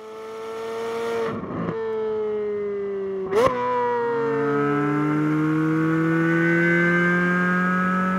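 2023 Chevrolet Corvette Z06's 5.5-litre LT6 flat-plane-crank V8 running hard, fading in and holding a fairly steady pitch. About three seconds in there is a sudden sharp break, then the exhaust note climbs slowly as the car accelerates.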